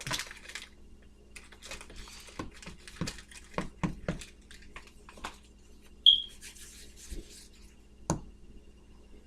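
Quiet kitchen handling sounds: scattered light taps and clicks of utensils and containers on a counter, with a sharper knock about eight seconds in. A short, high beep or squeak comes about six seconds in.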